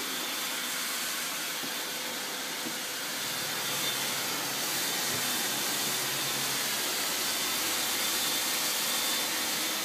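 Electric blower running steadily with a rushing hiss of air as it inflates a large clear plastic tube, with a faint high whine over it.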